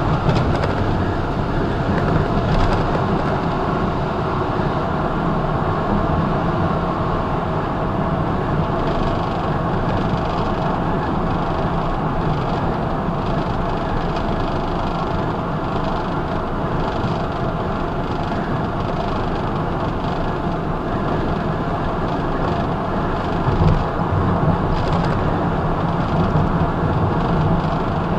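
Semi truck's diesel engine running steadily at highway cruise, with tyre and wind noise, heard from inside the cab.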